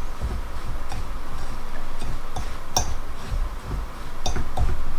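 A metal fork clinking and scraping against a glass mixing bowl while stirring a buttery crust mixture, in a few light, irregular ticks.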